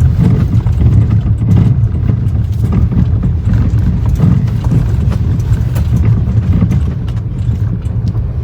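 Maruti Suzuki Brezza facelift driving over a rough, potholed road, heard from inside the cabin: a steady low rumble of tyres on the road with irregular, quiet knocks from the front right suspension. The knocking, a faint 'kadak kadak', was traced to the tie rod.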